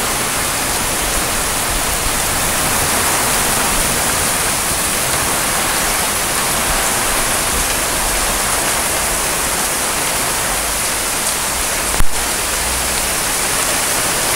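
Heavy rain pouring down, a steady dense hiss. One brief sharp knock about twelve seconds in.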